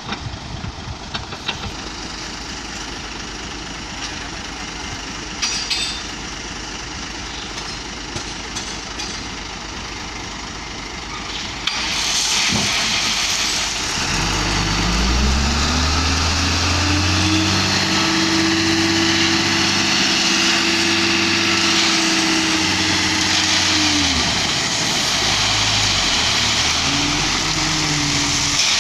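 Hino Ranger FM 260 Ti dump truck's diesel engine idles roughly, then revs up about fourteen seconds in and holds high revs for about ten seconds before dropping back, with a second short rev near the end: the revving that drives the hydraulic hoist to tip the body. A rushing hiss of aggregate sliding out of the tipper starts about twelve seconds in and runs under it.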